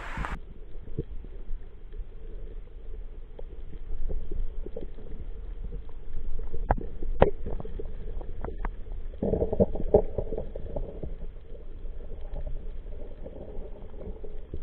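Underwater sound through an action-camera housing: a steady low rumble of water with scattered sharp clicks, and a louder stretch of water noise about nine seconds in that lasts a couple of seconds.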